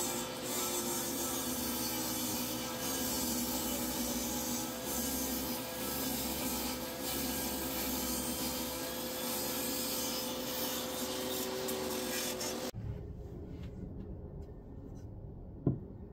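Jobsite table saw running and cutting wood as the stock is fed through on a clamped sled, with a steady motor whine under the cutting noise. The saw sound cuts off suddenly about three-quarters of the way in, leaving a quiet background and a single sharp tap near the end.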